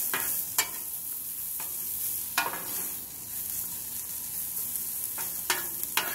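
Chopped onions sizzling in oil on a hot flat-top griddle, a steady hiss. A metal spatula scrapes and taps on the griddle's steel surface a few times as the onions are spread and stirred.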